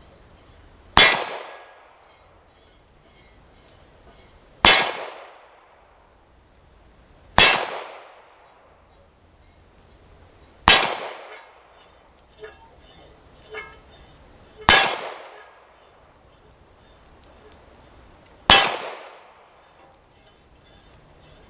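Six 9 mm pistol shots, three to four seconds apart, each ringing at once off a thin sheet-steel gong that is hit. Two faint knocks come between the fourth and fifth shots.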